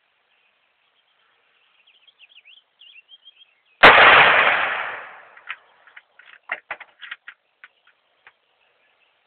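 A single shot from a Savage Model 11 Long Range Hunter rifle in 6.5 Creedmoor, about four seconds in, with a long fading echo. Birds chirp faintly before it, and a few short clicks and knocks follow.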